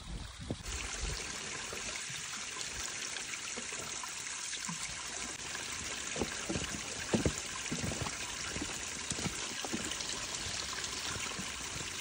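Thin stream of spring water trickling and splashing onto stones: a steady hiss of running water that starts about half a second in.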